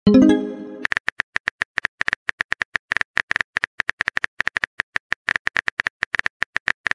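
Phone keyboard typing sound effect: a run of quick, unevenly spaced clicks, several a second, as a text message is typed out. It starts right after a short pitched chime that fades over under a second.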